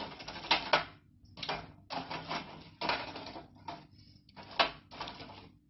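Crisp oven-toasted bread slices being handled on a baking tray: about ten short, irregular scraping and clattering sounds.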